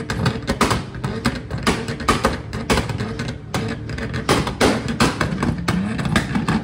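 Car exhaust popping and crackling: a rapid, irregular string of sharp pops, several a second, over a low engine note.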